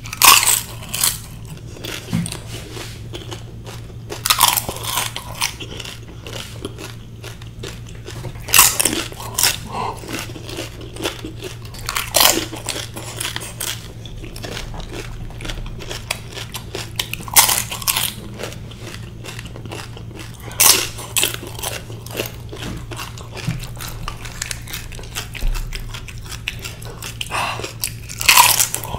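Crisp, hollow fried pani puri shells being bitten and chewed close to the microphone: a loud crunch every few seconds, with softer crackly chewing between. A faint steady low hum runs underneath.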